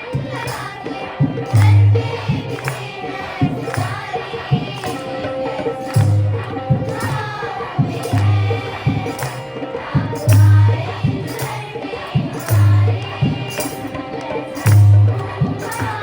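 A song with singing voices over tambourine and hand-drum percussion, with a deep drum beat about every two seconds.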